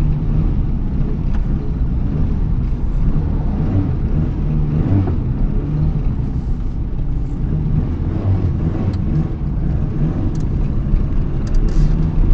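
VAZ-2109's tuned 8-valve carburettor engine running steadily while the car cruises gently, heard from inside the cabin as an even low rumble. The exhaust cutout valve after the header is closed, so the gases go through the standard exhaust and the car runs quietly.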